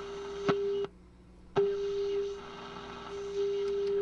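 RCA 66X1 radio's speaker playing the signal generator's steady test tone as the set is tuned near 1,300 kilohertz during alignment. A sharp click comes about half a second in. The tone then cuts out with a click and returns with another click about half a second later.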